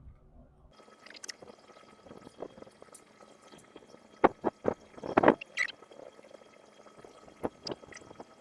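Shade cloth being handled and rustling while a fastener is threaded through it and pulled tight, with a cluster of sharp clicks about four to five seconds in.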